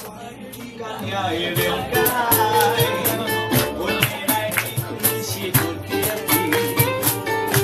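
Ukulele ensemble strumming with voices singing a song with a steady beat; the music is thinner and softer for about the first second, then fills out again.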